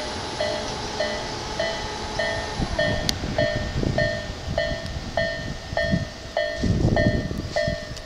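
Japanese railway level-crossing alarm ringing its electronic chime about twice a second. In the last second or two the low rumble of an approaching two-car Tobu 8000 series electric train grows louder beneath it.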